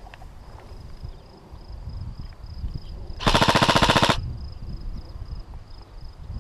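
G&G CM16 Raider airsoft electric rifle firing one full-auto burst of just under a second, a rapid even string of shots, about halfway through.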